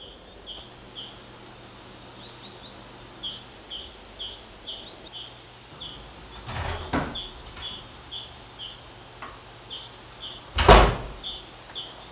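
Birds chirping in a rapid, regular pattern against a faint background hiss, with a few higher curving song notes. A couple of short clatters come about six and a half seconds in, and a louder door-opening thud comes about ten and a half seconds in.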